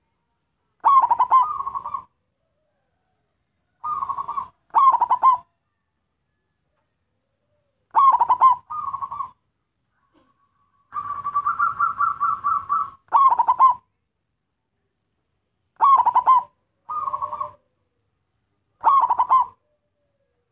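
Zebra dove (perkutut) singing: short phrases of quick staccato coos every couple of seconds, with one longer, rapid rolling coo about eleven seconds in.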